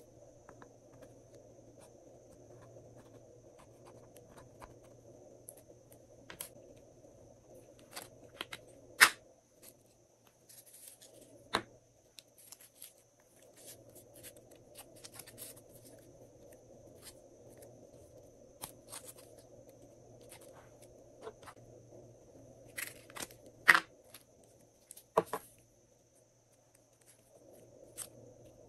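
Glossy slime being worked and mixed by hand: scattered sticky clicks and crackles, with a few sharp, louder pops.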